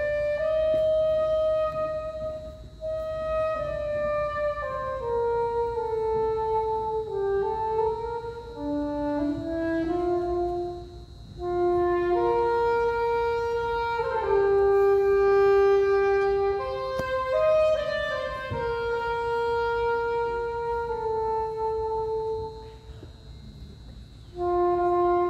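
A wind instrument playing a slow melody of long held notes, in phrases with short breaks between them.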